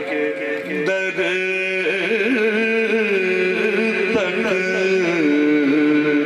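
A man's voice singing a naat in long, slowly bending held notes, amplified through a microphone.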